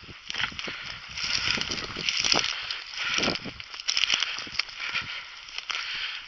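Irregular rustling and crunching of footsteps through dry grass and brush.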